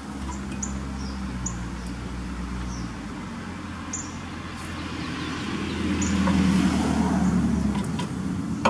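An engine running, a steady low hum that swells louder about six seconds in, with short high bird chirps repeating over the first several seconds.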